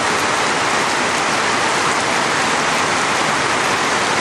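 Steady rain falling and splashing on the surfaces all around, an even hiss without a break.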